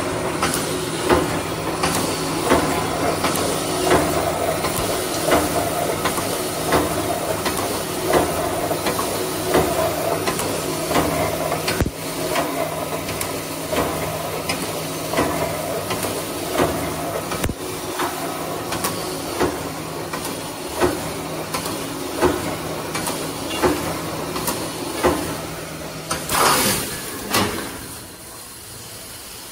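Automatic row welding machine for 2 mm breeding wire mesh running, with a steady hum, a hiss of compressed air and a regular clank about every one and a half seconds as it welds and steps the mesh forward. Near the end comes a loud rush of air, and the running is quieter afterwards.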